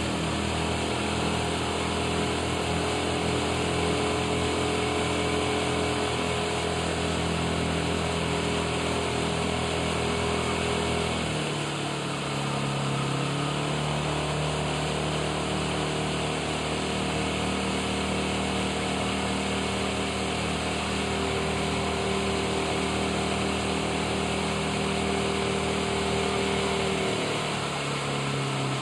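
Motorboat engine running steadily under way, its note shifting to a new speed about eleven seconds in and again near the end, with wind and water hiss beneath.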